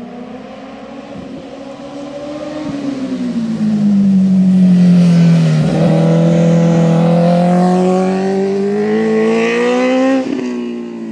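Sport motorcycle engine coming through a hairpin bend, growing louder as it nears. The engine note falls as the bike slows into the bend, then climbs steadily as it accelerates out, with a brief break near the end for a gear change.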